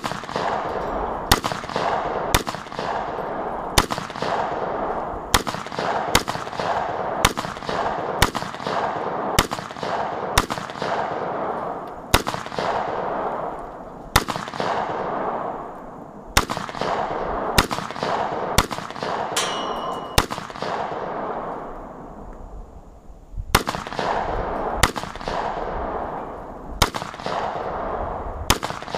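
AR-15 rifle with a 16-inch stainless bull-barrel 5.56 upper fired semi-automatically: about two dozen sharp shots at roughly one a second, each trailing off in echo. A pause of about three seconds falls after twenty seconds, then the firing resumes.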